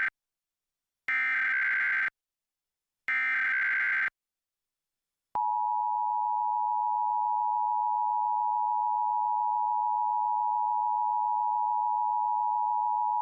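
Emergency Alert System SAME header data bursts: the end of one burst at the start, then two more rasping one-second bursts about a second apart. About five seconds in, the EAS attention signal begins, a steady two-tone tone (853 and 960 Hz) that holds for about eight seconds. This is the opening of the national EAS test alert.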